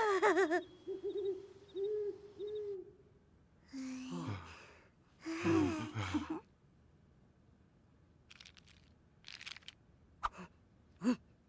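Cartoon character's wordless vocal sounds. A wavering cry comes first, then a run of short hooting sounds, then two falling cries a couple of seconds apart. A few faint clicks follow near the end.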